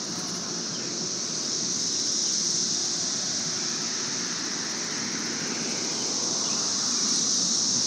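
Steady outdoor noise heard from a bicycle rolling along a city street: a low even rumble with a steady high-pitched hiss over it.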